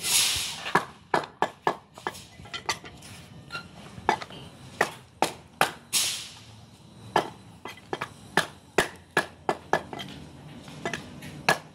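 Butcher's cleaver chopping goat meat on a wooden log block: a string of sharp, unevenly spaced chops, about two a second. Two brief hissing swishes, one at the start and one about halfway.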